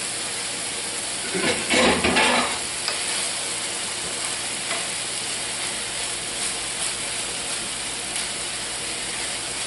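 Ground beef and vegetables sizzling steadily in a hot skillet as blanched string beans are stirred in with a wooden spoon. A brief louder clatter comes at about two seconds in.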